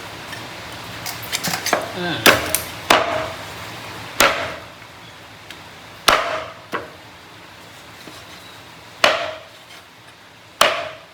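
Heavy knife strokes chopping on a wooden cutting board, about eight sharp strikes at uneven intervals, with a quick run of lighter knocks near the start.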